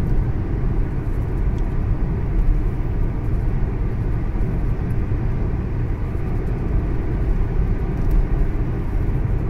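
Steady road and engine noise inside the cabin of a moving car, a low, even rumble.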